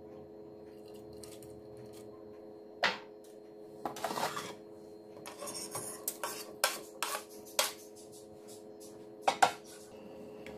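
A ceramic bowl and a wooden chopping board knock and clatter against the rim of a stainless-steel stockpot as cabbage and then shredded chicken are tipped and scraped in. Scattered knocks come in a quick run in the middle, and two sharp knocks near the end are the loudest. A low steady hum runs underneath.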